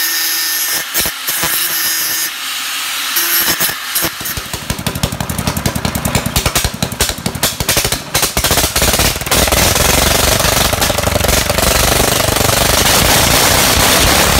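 An angle grinder cutting metal with a steady whine, in three short runs. Then a Kubota single-cylinder tractor engine, converted from diesel to run on petrol, starts and fires in quick pulses that come faster and faster, and after about nine seconds it settles into a steady high-speed run.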